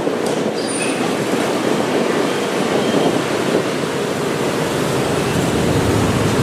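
Jet engine noise of an Airbus A320-family airliner climbing away: a steady, dense rushing sound with no breaks.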